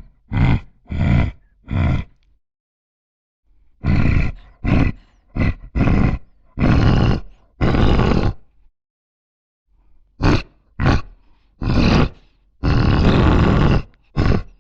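Zombie grunting sound effect: a voice making short, rough grunts and groans in three runs, with pauses of a second or so between them. The grunts grow longer, ending in one long drawn-out groan near the end.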